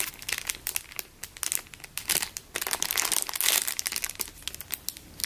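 Clear plastic packaging bag crinkling in irregular bursts as hands handle the squishy inside it, louder twice, about two and three and a half seconds in.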